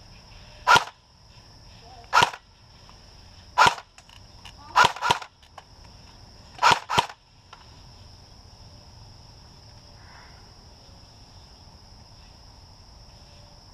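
Airsoft guns firing seven sharp shots in the first seven seconds, first singly and then in two quick pairs.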